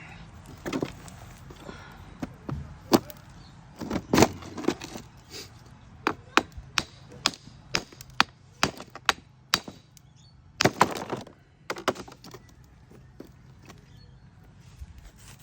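Hammer striking a stone again and again to split it along a crack: a series of sharp knocks, irregular at first, then coming about two a second through the middle.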